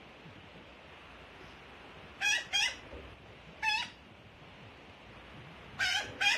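Black-billed magpie fledgling giving five short, harsh calls: a quick pair, a single call, then another quick pair near the end.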